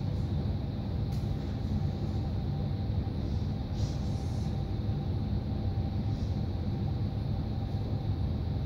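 Steady low rumble of room noise with a faint hum. A few brief strokes of a marker on a whiteboard come through on top, the longest about four seconds in.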